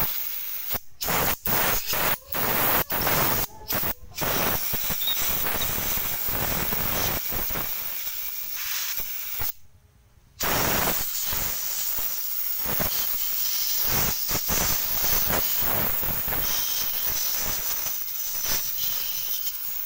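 Compressed-air blow gun hissing as it blows dirt out of a small-engine carburetor's passages during a carb cleaning: several short blasts in the first four seconds, then after a brief stop a little before halfway, a long steady blast.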